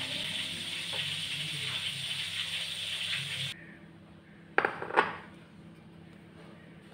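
Background music that cuts off suddenly about halfway through, then two sharp knocks less than half a second apart as a plate is set down on a hard tabletop.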